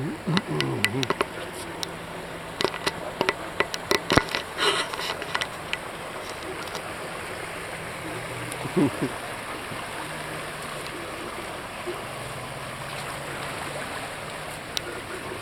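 Steady wash of shallow flood water as an SUV wades slowly through it, with a faint low hum. A run of sharp clicks and knocks in the first five seconds is the loudest thing.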